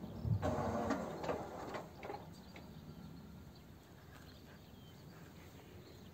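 Electronic warning bell of an AŽD 97 level crossing sounding its last few strokes, about two a second. It stops about two seconds in as the crossing clears and the barriers rise, leaving faint outdoor background.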